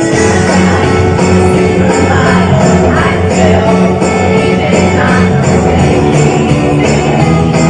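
Live band playing loud amplified music with a steady jingling beat on top.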